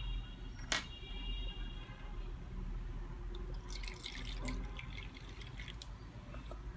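Water dripping and trickling in small scattered drops, with a single sharp click about a second in, over a low steady hum.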